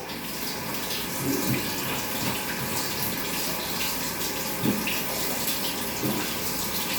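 Shower water running steadily over a cat's thick coat, rinsing shampoo out during a bath.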